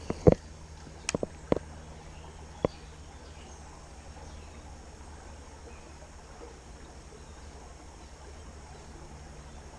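A few sharp clicks and knocks in the first three seconds, the loudest just after the start, then a steady low outdoor background hum.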